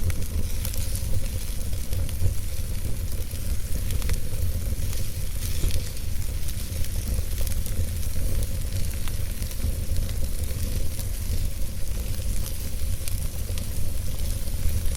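Campfire burning, with a steady hiss and frequent small crackles and pops over a constant low rumble.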